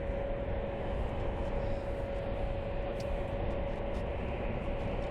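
Jet airliner engines running steadily: a continuous low rumble with a steady mid-pitched whine held throughout.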